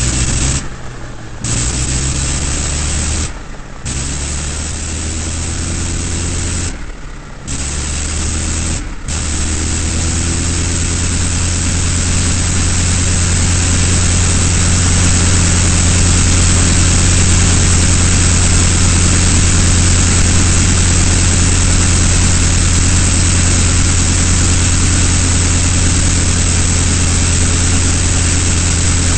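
Avro 504K's rotary aero engine running steadily in flight, a low, even drone. It cuts out briefly several times in the first nine seconds before settling into an unbroken run.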